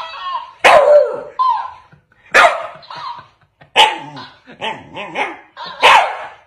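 Shiba Inu barking at a plush toy duck: four sharp barks about one and a half to two seconds apart, with softer, shorter sounds in the gaps between them.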